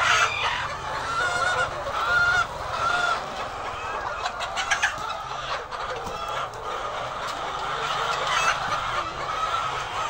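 A large flock of white laying hens calling all at once, a steady din of overlapping clucks and squawks, with a few sharp clicks about halfway through.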